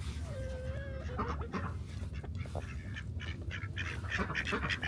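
Domestic ducks quacking: one longer held call early on, then short quacks that come faster and louder toward the end.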